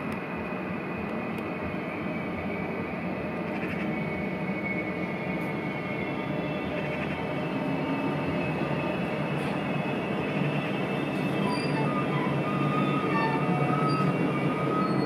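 A train running on the rails, the rumble growing slowly louder, with thin high wheel squeal that becomes more prominent over the last few seconds.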